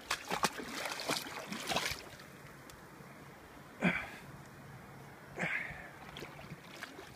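A canoe getting under way: a quick run of small splashes and knocks against the hull, then two single paddle-stroke splashes about four and five and a half seconds in.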